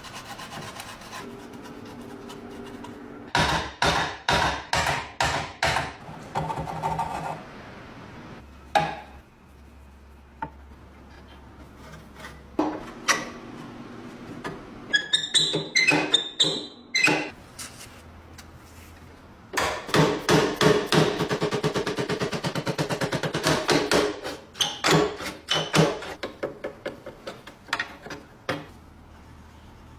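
Hand tools working on a rusty metal lock: runs of sharp taps and scraping strokes, with a single knock in between. The longest and quickest steady run of strokes comes in the second half.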